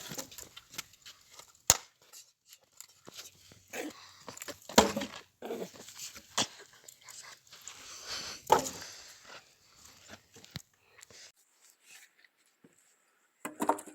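Dry firewood and brush being handled and stacked for a bonfire: scattered sharp knocks and cracks of wood with crunching and rustling between them, the loudest knocks about two, five, six and a half and eight and a half seconds in.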